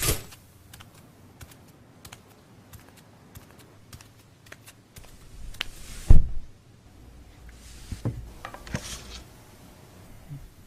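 Scattered clicks and taps on a computer keyboard, with one heavier thump about six seconds in.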